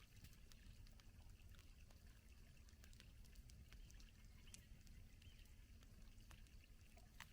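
Faint campfire crackling: irregular small snaps and pops from the burning wood over a low steady rumble, with one sharper pop near the end.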